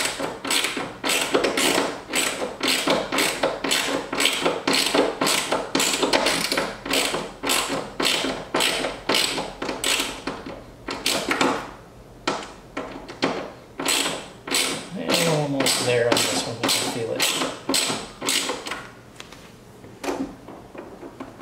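Hand socket ratchet clicking in repeated back-and-forth strokes, about two a second, as small screws are snugged down by hand. The strokes thin out near the end.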